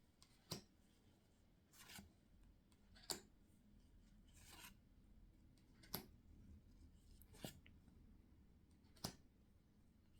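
Pokémon trading cards being handled one at a time. Faint, short snaps and slides of card stock come about every second and a half.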